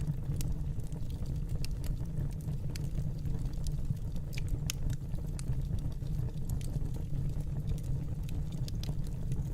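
Wood fire in a fireplace, crackling with irregular sharp pops over a steady low rumble.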